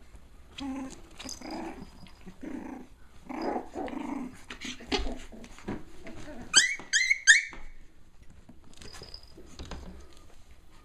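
Cavalier King Charles Spaniel puppies play-growling at each other for the first few seconds, then three sharp high-pitched yips in quick succession just past the middle.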